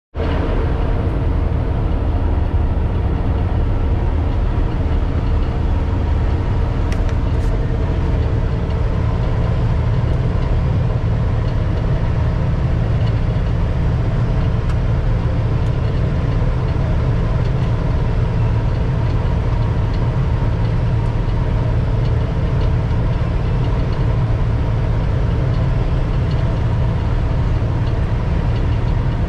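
Laverda 2760 MCS combine harvester running steadily while harvesting wheat, heard from inside the cab. A constant heavy low drone of engine and threshing machinery, with a steady whine over it.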